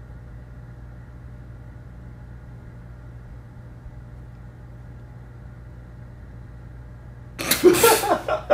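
Steady low hum of a room air conditioner with a light hiss. About seven seconds in, a loud burst of laughter and voices breaks in.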